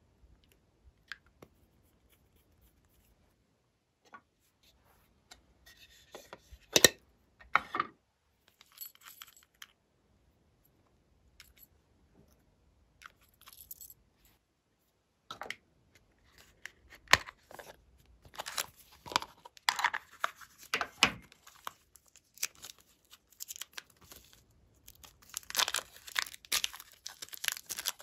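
Sparse sticky clicks and short crackles of glossy slime being handled, then from about halfway a dense run of crinkling and tearing as clear plastic wrap is peeled off a ball of blue slime, loudest near the end.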